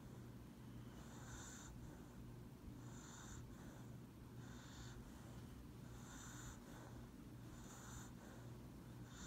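A sleeping dog breathing with soft, wheezy snoring breaths: about five of them, one every second and a half or so, over a steady low hum.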